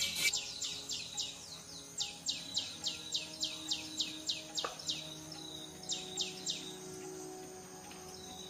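A bird calling in quick runs of clear notes, each sliding down in pitch, about three or four a second. There are three runs: one at the start, a longer one of about ten notes in the middle, and a short burst of three near the end.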